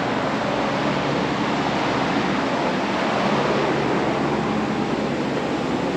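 Steady machine-shop background noise: a loud, even rushing sound with a low hum under it.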